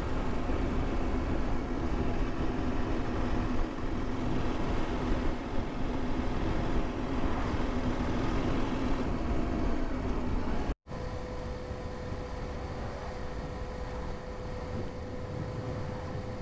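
Motorcycle engine running steadily at cruising speed, with wind rushing on the microphone. About eleven seconds in the sound drops out for an instant and comes back quieter, with a steady higher hum.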